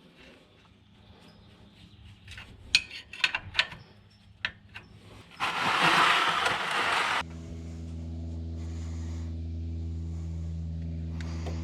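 A few sharp clicks and knocks, then about two seconds of loud rushing noise, then a steady low hum with several even tones that starts abruptly and holds: the Porsche 356C's air-cooled flat-four running steadily.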